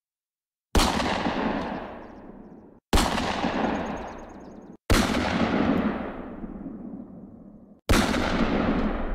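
Four single gunshot sound effects, about two to three seconds apart, each one matching a bullet hole appearing. Every shot rings out in a long echoing tail that cuts off suddenly just before the next shot.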